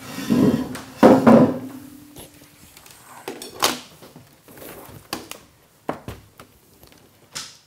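Handling noise at a laptop on a desk: two dull thumps, then four sharp clicks spaced a second or so apart.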